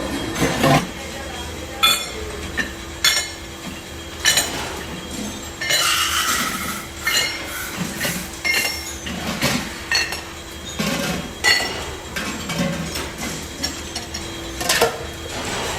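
Metal pieces clinking and clattering against each other in irregular knocks, about one a second, with a longer clatter about six seconds in. A steady machine hum runs underneath.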